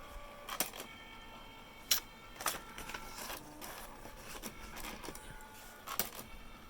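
Canon Typestar 3 thermal electronic typewriter printing its self-test: a faint steady motor whine from the carriage, broken by sharp mechanical clicks at uneven intervals.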